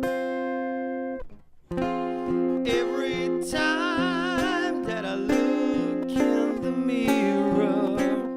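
A band playing, with guitar over a steady beat. The music drops out briefly just over a second in, then resumes, and a singer comes in about three seconds in.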